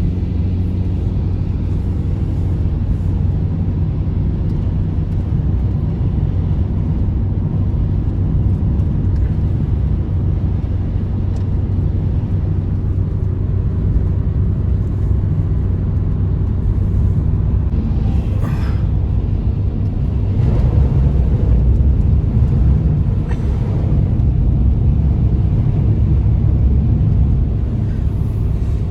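Steady low roar of blizzard wind, swelling a little about two-thirds of the way through, with a couple of faint ticks.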